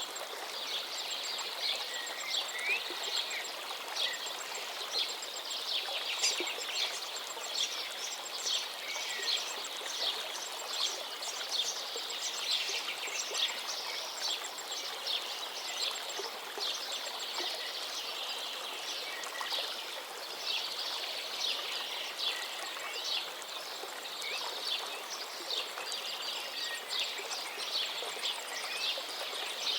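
A dense chorus of songbirds, many quick chirps and trills overlapping without pause, over the steady rush of a flowing river.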